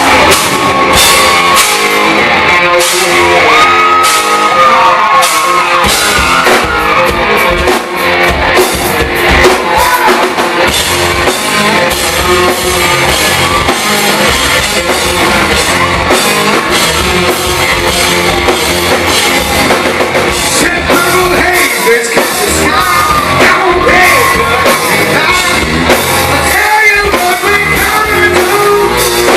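Live hard rock band playing loudly: a sung lead vocal over distorted electric guitars, bass and a drum kit, heard with the reverberation of a club room.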